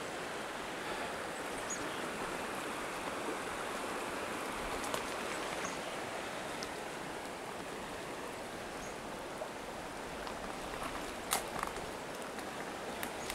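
Goat River running steadily over a shallow stony bed, an even rushing of water, with a couple of faint clicks near the end.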